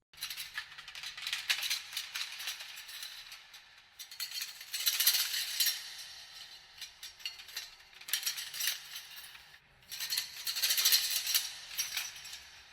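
Metal chains rattling and jangling, a dense run of small metallic clinks that swells in three bursts and fades near the end, processed with heavy reverb and distortion.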